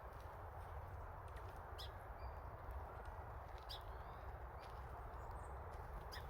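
A few short, high bird calls, about two seconds apart, over a steady background hiss.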